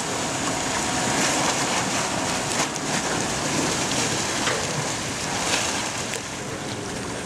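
Water rushing and splashing steadily as a helicopter underwater egress trainer cabin sinks and rolls over in a pool, water pouring over it and in through its windows.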